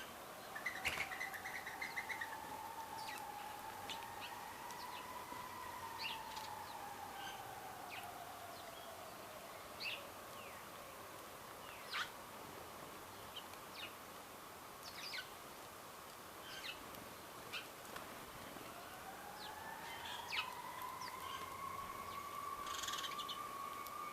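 Wild birds chirping in short, scattered calls, with a quick run of notes about a second in. Under them a faint hum glides slowly down in pitch over the first ten seconds and rises again near the end.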